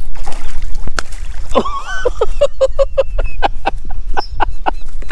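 Hooked largemouth bass splashing as it is hauled out of the water onto the bank, over a steady rumble of wind on the microphone. From about halfway through comes a quick run of clicks, roughly four or five a second.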